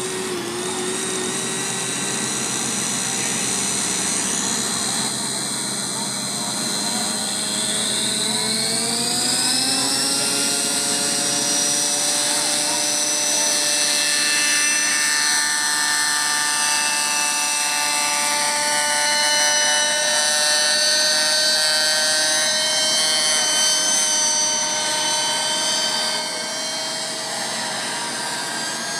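Radio-controlled model helicopter spooling up: its whine rises in pitch from about eight seconds in and then holds high and steady as it flies.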